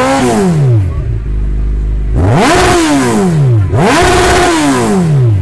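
Kawasaki Z1000's inline-four engine revving through a Prospeed Shark titanium aftermarket exhaust: a rev falling back to idle at the start, then two more throttle blips in quick succession, the second held briefly at the top before dropping back to idle.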